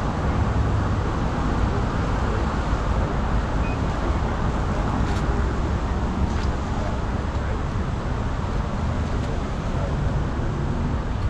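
Steady low rumble of vehicle engines and road traffic, with a couple of faint ticks partway through.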